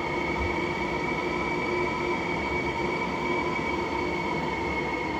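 Cyclone-force wind whistling and howling through the gaps around a closed flat door. It makes a steady eerie moan with several pitches held at once over a constant rushing noise.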